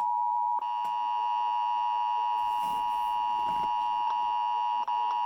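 Emergency Alert System attention signal: a steady, unbroken two-tone alert tone, the signal that an emergency warning message is about to follow.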